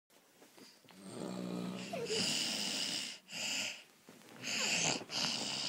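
Snoring from a sleeper: a low buzzing snore on the in-breath about a second in, then a run of hissing, wheezy breaths in quick succession.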